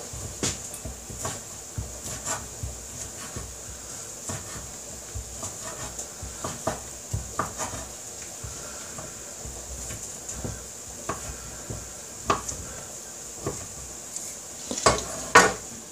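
Kitchen knife chopping cooked chicken breast on a wooden board: irregular taps of the blade against the wood, with a cluster of louder knocks near the end.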